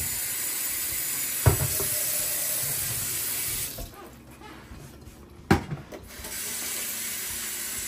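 Kitchen tap running as hands are washed before kneading dough. The water stops for about two seconds a little past the middle, then runs again, with a couple of short knocks at the sink.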